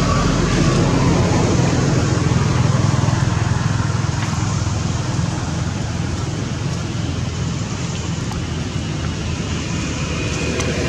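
Steady low rumble under an even hiss.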